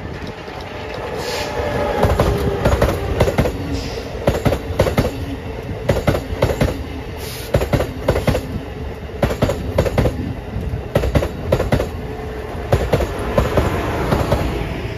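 Amtrak Acela Express trainset passing at speed: a steady rumble with quick groups of sharp clacks as the wheels cross the track joints. It builds over the first two seconds and fades as the rear power car goes by near the end.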